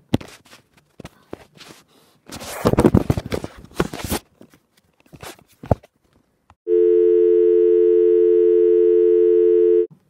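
Knocks and a loud rustle of handling, then a steady telephone dial tone of two close low notes lasting about three seconds in the second half, the loudest sound here.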